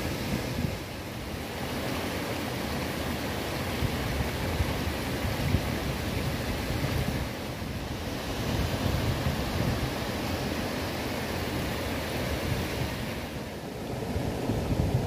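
Steady rushing of river water and a small cascade, with wind buffeting the microphone underneath.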